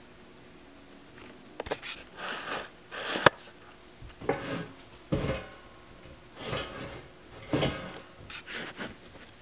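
A cat wrestling with a metal-framed step stool, its claws and teeth on the chrome leg and the frame shifting on the wooden floor: irregular scrapes and rattles starting about a second in, with one sharp click about three seconds in.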